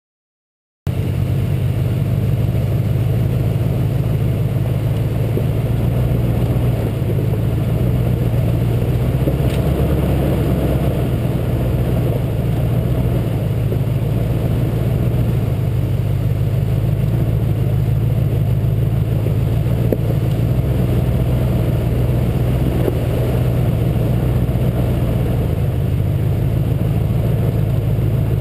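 A 2006 Nissan Titan's V8 engine running steadily as the truck drives down a rough, rocky mountain track. The sound starts abruptly about a second in and then holds even.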